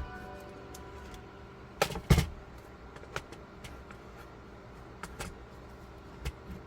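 Light clicks and taps of hands and small tools working on a device's casing and parts during a screen repair, with two louder knocks about two seconds in and a few softer clicks after.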